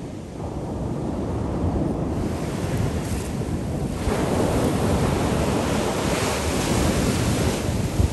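Ocean surf breaking and washing up a sandy beach, with wind buffeting the microphone. The rush grows louder about halfway through as a wave's foam runs up the sand.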